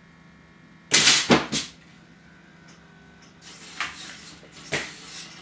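Knocks and clatter from a home-made robot arm swinging a plastic baby bottle on its gripper: a quick run of three loud knocks about a second in, then softer knocks and one sharp knock near the end, over a faint steady hum.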